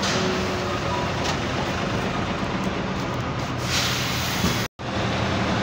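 City bus engines running with a steady low drone, and a short hiss of air about four seconds in. Near the end the sound drops out completely for a moment.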